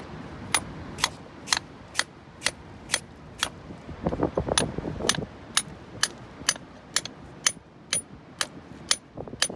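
A lump hammer striking a steel cold chisel held against rock, about two blows a second in a steady rhythm, each with a sharp metallic ring: chiselling an ammonite fossil out of a boulder.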